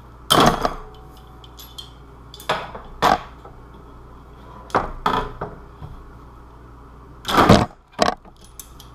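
Handling noises of an armour piece being moved about: a series of separate knocks and scrapes, about six in all, the loudest a longer knock about seven and a half seconds in.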